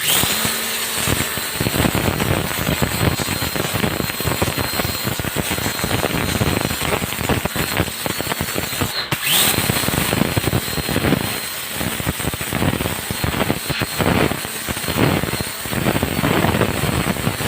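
Electric pressure washer running and blasting a water jet against a surface: a steady, crackling spray noise with a faint high whine, broken by a cut about nine seconds in.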